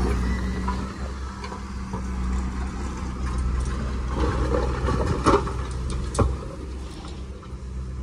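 Heavy diesel earthmoving machinery running steadily at low revs, with two short sharp knocks about five and six seconds in.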